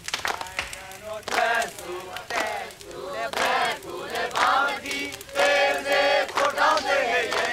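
A group of voices singing a fighting song together, in chant-like phrases with some long held notes.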